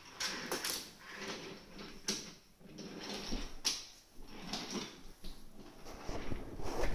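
Children handling toys: scattered knocks and clatter of plastic and wooden toy pieces, several sharp ones spaced a second or so apart.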